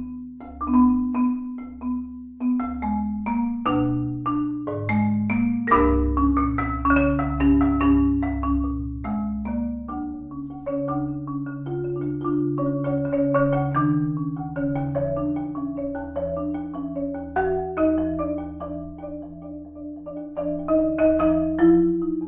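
Solo Korogi concert marimba played with four yarn mallets: rolled low notes sustained under quick, repeated strikes in the upper range. The playing softens about three-quarters of the way through, then grows louder again near the end.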